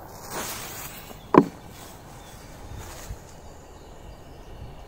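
Faint outdoor background with a single short, sharp knock about a second and a half in.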